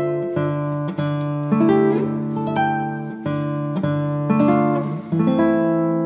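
Background music: an acoustic guitar picking notes and chords, a new note or chord roughly every half second to second.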